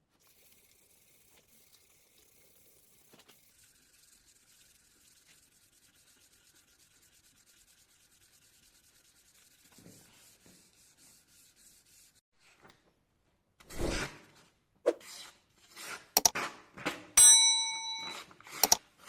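Faint hand rubbing or sanding strokes on the steel cleaver, then several louder scraping strokes near the end. Between these a short metallic ring sounds as the steel is struck or set down.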